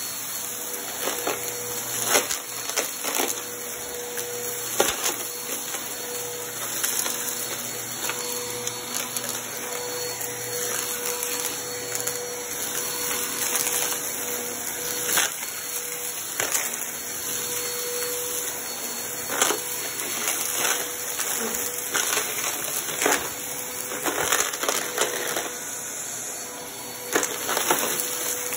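Vacuum cleaner running over carpet: a steady motor whine with a rushing hiss of air, while crumbs and small bits of debris click and rattle as they are sucked up, at irregular moments.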